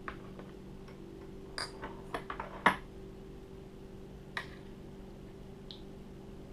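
Scattered light clicks and taps as a powder measure's handle is worked and its metal powder pan is handled and set on a digital scale. The loudest tap comes near the middle, and a steady low hum runs underneath.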